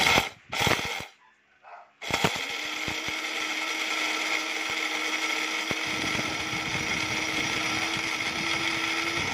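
Small electric blade grinder pulsed twice briefly, then run steadily for about seven seconds with an even motor whine, grinding dry puppy kibble into powder; it cuts off suddenly at the end.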